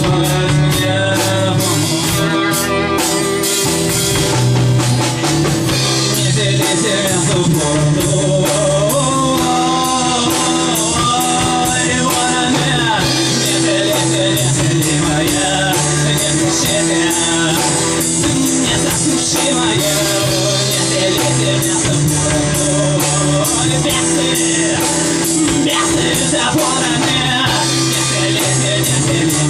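Rock band playing live: drum kit keeping a steady beat under electric guitar and bass.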